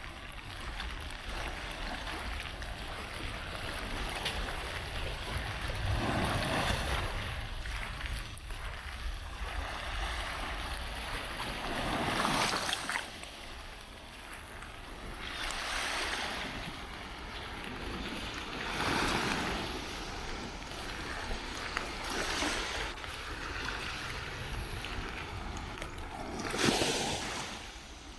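Small waves washing onto a sandy beach, the surf swelling and fading every few seconds, loudest near the end. A low rumble of wind on the microphone runs underneath.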